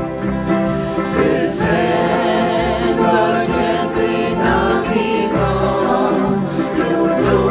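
A small group of men and women singing a worship song together in harmony, with acoustic guitar accompaniment.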